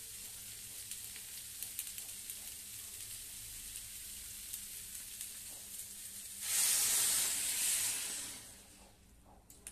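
Food frying in a hot pan, a steady sizzle with small crackles. About six and a half seconds in the sizzle surges much louder for about two seconds, then dies away.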